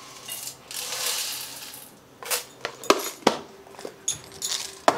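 Dried split dal poured from a plastic container into a steel bowl, a rattling hiss of grains lasting over a second. Then several sharp clicks and knocks as plastic storage containers and their lids are handled at a kitchen cupboard.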